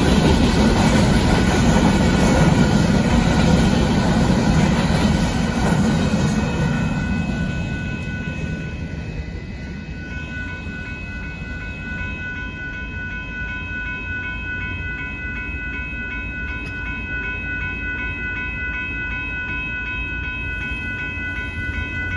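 Empty hopper cars of a freight train rolling past over a grade crossing, loud at first and fading away about seven to nine seconds in. Then the crossing signal's bell keeps ringing steadily.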